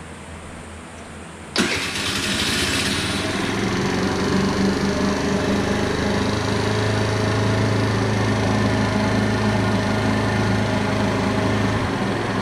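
Tao Tao 50cc scooter engine starting about a second and a half in, then running at a steady fast idle; near the end the idle drops as the electronic choke kicks in.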